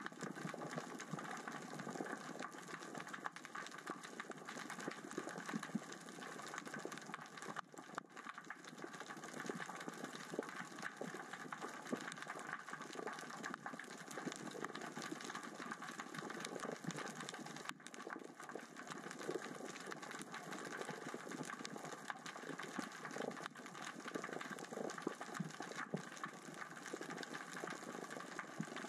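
Steady underwater crackling made of countless fine clicks and ticks, which the diver attributes to small rocks rolling across the sea floor in the current and tide.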